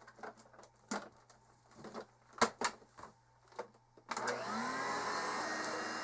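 A few light clicks and knocks. About four seconds in, an Electrolux Epic Series 6500 SR vacuum switches on with a rising whine as its motor spins up, then settles into a steady run. The owner puts the high-pitched whine at start-up down to the motor bearings starting to go.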